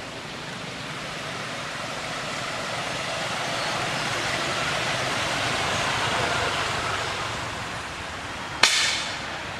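Steady rushing noise that slowly swells and fades again over several seconds, with one sharp click near the end.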